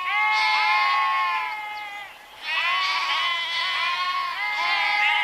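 Several sheep bleating, their calls overlapping at different pitches, with a short lull about two seconds in.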